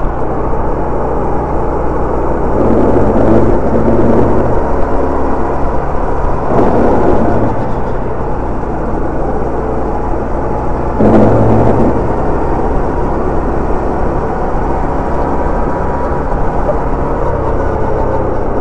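Sodi two-seater rental kart's engine running on the track, heard onboard with dense road and wind noise; its note rises and falls and swells louder three times.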